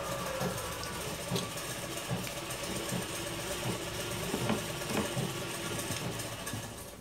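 Close-up eating sounds: chewing in soft, even pulses about twice a second, with a few light clicks.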